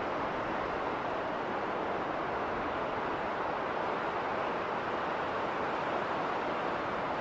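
Winter wind howling steadily through a snowstorm, an even rushing noise with no gusts or breaks.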